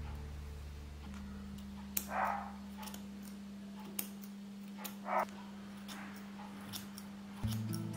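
Steel grooming scissors snipping at a Shih Tzu's face hair, a few separate sharp clicks, with two short breathy noises from the dog, about two and five seconds in. Soft background music with held notes underneath.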